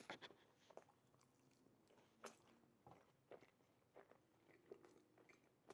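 Quiet, close-miked chewing of a mouthful of loaded fries: irregular soft crunches and wet mouth clicks, the sharpest right at the start and again about two seconds in.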